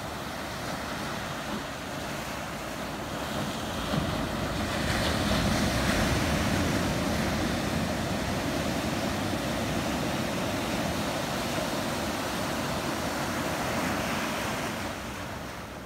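Ocean surf breaking and washing up the beach. The surf swells about four seconds in and eases off near the end.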